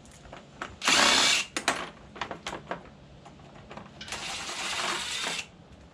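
DeWalt cordless impact driver with a T40 Torx bit running in two bursts, backing out already-loosened bolts on a UTV's front fascia. The first burst is short and loud, about a second in. The second is longer and a little quieter, about four seconds in, with a few small clicks and knocks of bit and bolt in between.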